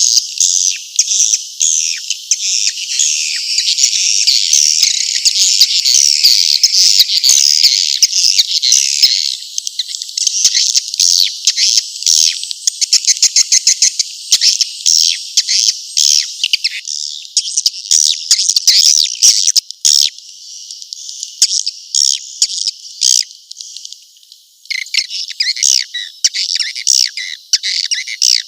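Recorded swiftlet calls used as a swiftlet-house lure: a dense chorus of rapid, high chirping and twittering trills. The chorus is thick for the first several seconds, then thins into sparser, broken runs of quick clicking chirps.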